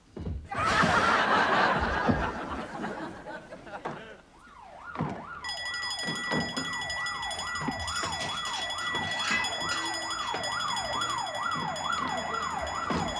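A loud, noisy crash near the start, then from about four seconds in a wailing alarm siren that sweeps up and down about twice a second, joined soon after by a steady high tone.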